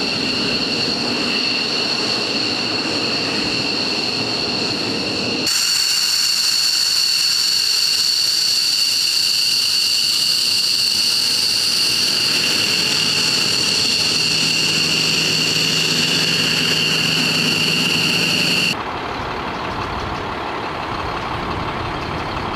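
F-15E Strike Eagle's twin jet engines running on the ground, a loud steady whine with two high tones, which jumps louder about five seconds in and picks up a low hum partway through. Near the end the whine cuts off abruptly, leaving the duller sound of a truck engine idling.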